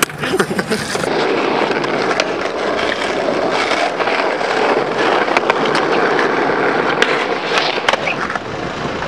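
Skateboard wheels rolling on smooth pavement as the rider pushes along: a steady, loud rolling rumble with scattered sharp clicks.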